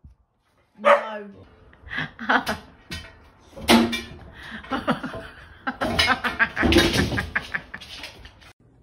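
People talking and laughing, with several sharp knocks and clatters as a small dog scrambles onto a glass-topped table among metal chairs.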